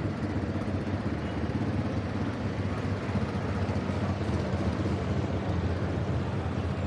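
City street traffic: car and motorcycle engines running close by, a steady low rumble.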